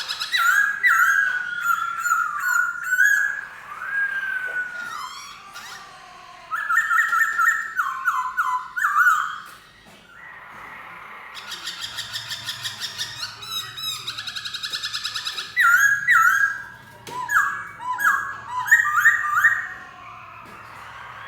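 Black-throated laughingthrush singing: loud, clear whistled phrases of repeated and sliding notes in three bursts, with fast chattering notes in between.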